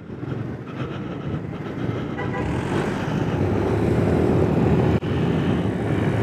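Honda Forza 250 maxi-scooter's single-cylinder engine and wind noise on the helmet-mounted microphone, growing steadily louder as the scooter gathers speed, then holding steady.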